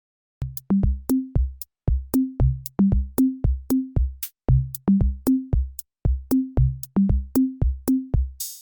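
Background music: an electronic drum-machine beat of deep bass-drum hits and sharper clicks, about two hits a second.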